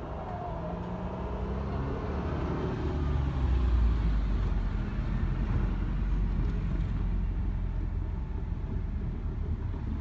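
Keikyu electric train running past on the neighbouring track. Its low wheel rumble builds to its loudest about four seconds in, while a motor whine falls in pitch over the first few seconds.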